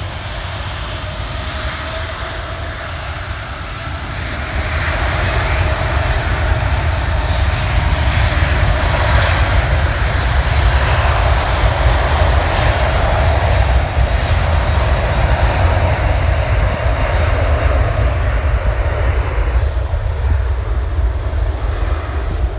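Jet engines of a Lufthansa Airbus A380-841, four Rolls-Royce Trent 970 turbofans, at takeoff thrust during the takeoff roll. A continuous deep rumble with a rushing hiss grows louder about four or five seconds in, then eases slightly near the end as the aircraft moves away.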